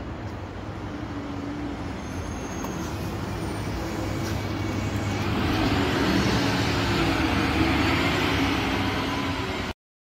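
City bus approaching and driving past close by: a low engine hum and tyre rush growing louder to a peak as it goes past, then cutting off suddenly near the end.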